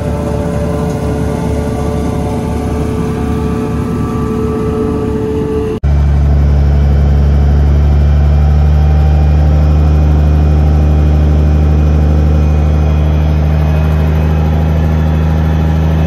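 Heavy farm machinery engines running steadily. About six seconds in, a cut switches to a louder, deeper engine drone.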